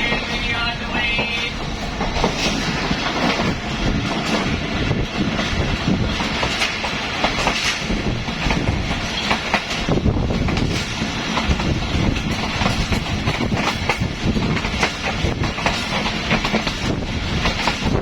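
Pakistan Railways passenger train running on the track, its wheels clattering over the rail joints in a clickety-clack over a continuous rumble.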